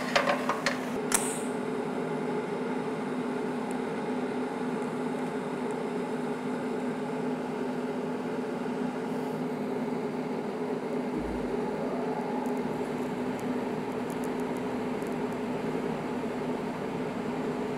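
TIG welding arc from an Everlast PowerTIG 250EX burning steadily on 304 stainless steel, with a brief high crackle about a second in and then an even hum. The arc is being washed over the corners of the tube and bar to melt the sharp edges round.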